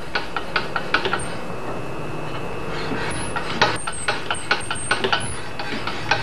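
Hand file worked across an axe head clamped in a filing jig: a quick run of short scraping strokes, a pause of about two seconds, then another run. This is the filing stage that brings the edge near enough to be polished.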